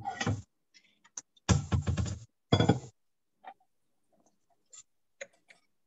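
A person's voice in a few short wordless bursts, followed by a few faint clicks of a fork on a plate.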